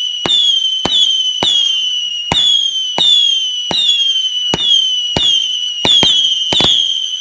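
A multi-shot fireworks cake firing whistling shots in quick succession: each shot is a sharp pop followed by a high whistle that drops slightly in pitch, about one every half second to second.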